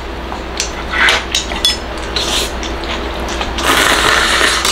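Takeout tableware being handled: a few light plastic clinks and taps as the lid comes off a plastic noodle bowl, then a short rustle near the end.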